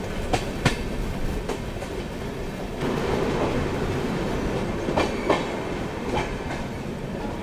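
Rajya Rani Express running at speed, heard from aboard a coach: a steady rumble of wheels on rail with sharp clickety-clack as the wheels cross rail joints, some clicks coming in quick pairs. The rumble grows louder about three seconds in.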